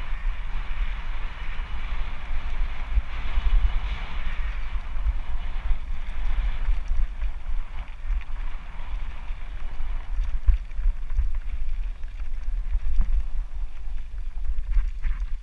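Wind buffeting the microphone of a camera on a mountain bike rolling down a dirt ridge trail, a gusty rumble throughout. A hiss from the bike's rolling runs over it and is strongest in the first five seconds, and small knocks and rattles come in the later seconds.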